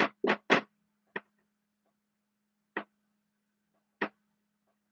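Dry-erase marker writing on a whiteboard in short, scratchy strokes. There is a quick cluster of three strokes at the start, then single strokes spaced a second or more apart, over a faint steady hum.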